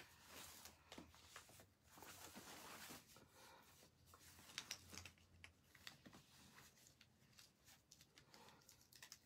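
Faint rustling and scattered soft clicks of hands rummaging through clothing, searching a jacket's contents.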